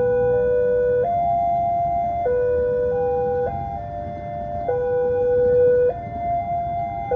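Electronic level-crossing warning alarm sounding a slow, repeating pattern of sustained tones that step between a lower and a higher pitch about every second, signalling an approaching train.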